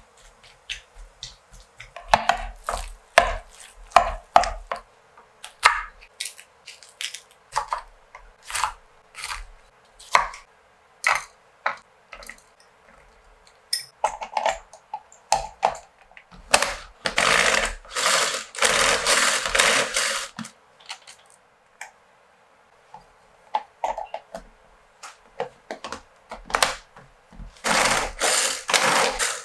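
Hand-pulled cord food chopper whirring its blades through tomatoes and bell peppers, a run of rattling pulls in quick succession, in bursts about two-thirds of the way in and again near the end. Before that, scattered clicks and knocks of hands and a utensil working in a bowl.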